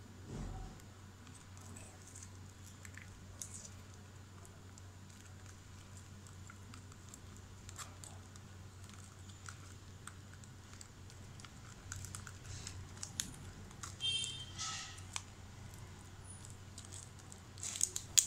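Light clicking and crinkling of small plastic bottle caps and a toothpick being handled, over a faint steady hum. About 14 s in, and again louder just before the end, come short rasping stretches of clear tape being pulled off its roll.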